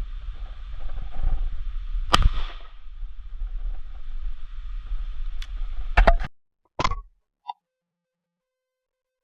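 Wind rumbling on the microphone, then a single shotgun shot about two seconds in with a short echo. A few sharp clicks follow near the six-second mark before the sound cuts off to silence.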